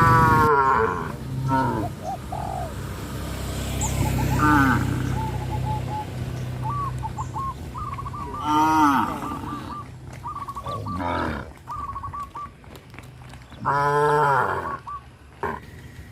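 A herd of cattle mooing repeatedly, several animals calling over one another. There are long, loud moos near the start, about eight and a half seconds in and near the end, with shorter, higher calls between them, over a low steady hum in the first few seconds.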